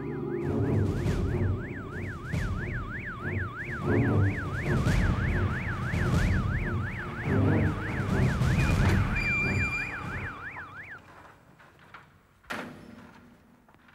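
Police car siren in a fast rising-and-falling yelp, about three swings a second, over a low rumble. It cuts off about eleven seconds in, followed by a single sharp knock.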